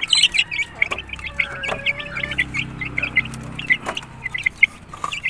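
Young game fowl chicks peeping, many short high chirps overlapping several times a second. A faint low hum runs underneath for a second or two midway.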